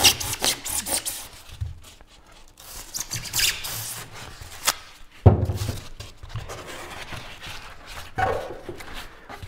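A knife sawing and cutting through closed-cell foam in irregular scraping strokes, with a single knock about five seconds in.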